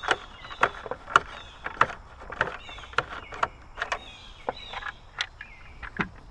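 Sharp metallic clicks and clinks, roughly two a second and unevenly spaced, some with a brief high ring: hand tools working the bolts on a trolling motor's side panels.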